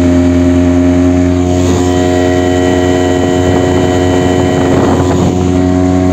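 Small outboard motor running at a steady speed, pushing the boat along, with one even engine note that does not rise or fall.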